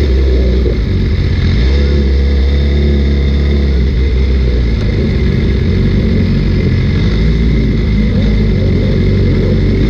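BMW S1000RR's inline-four engine idling steadily, heard close up from the bike itself.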